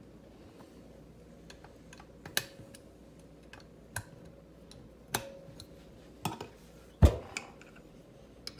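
Scattered metal clicks and taps of an 8mm wrench working the float bowl bolts on a Holley 4412 two-barrel carburetor, at uneven intervals. About seven seconds in comes a heavier knock as the carburetor is tipped over onto its side.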